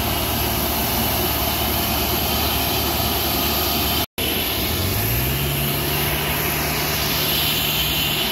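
Steady, loud jet aircraft noise on an airport apron. It breaks off for a moment about four seconds in, and after that a low hum rises in pitch and then holds steady.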